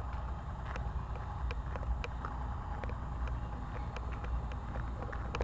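Steady low rumble of a moving vehicle, with scattered light clicks and rattles.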